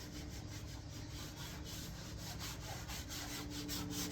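Scrubbing the ottoman's fabric cover with cleaner: quick back-and-forth rubbing strokes, about four a second.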